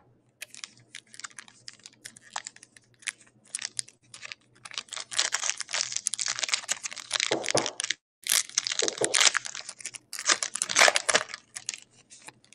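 Foil trading-card pack wrapper being torn open and crinkled by hand, a run of crackling, with the loudest crinkling about halfway through.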